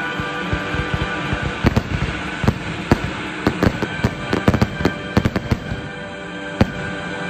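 Fireworks going off: a rapid run of sharp bangs and cracks, thickest from about three to five and a half seconds in, with music playing underneath.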